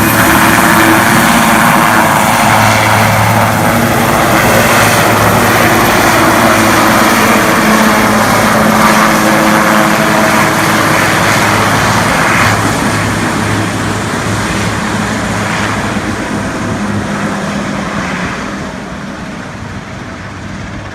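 Helicopter flying away after takeoff, its rotor and engine noise loud and steady at first, then fading steadily over the second half as it moves off.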